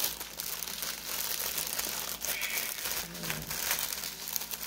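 Plastic packaging being handled, crinkling and rustling continuously with many small irregular crackles.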